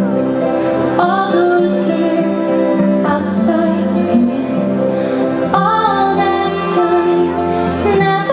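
Show soundtrack music with a woman singing long held notes over the accompaniment, the melody moving to new notes about a second in and again around five and a half seconds in.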